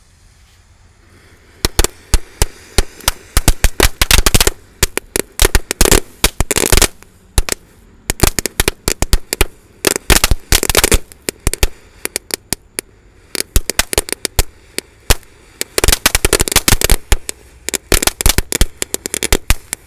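Jumbo crackling fountain firework going off from a hole in the ground: dense, irregular sharp cracks start about a second and a half in and come in thick clusters with short lulls between them.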